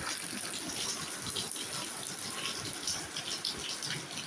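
Heavy rain falling: a steady hiss of dense drops with many small ticks of individual drops striking.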